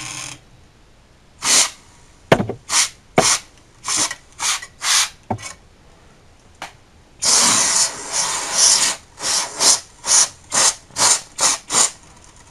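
Canned compressed air spraying in about fifteen short puffs of hiss into the Acer 5600Z all-in-one's heatsink and fan, with one longer blast about seven seconds in, blowing out built-up dust. A few sharp clicks come in the first half.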